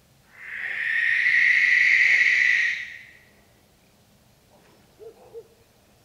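Barn owl giving one long screech of about two and a half seconds, harsh and noisy rather than a clear whistled note, starting about a third of a second in and tailing off near the three-second mark.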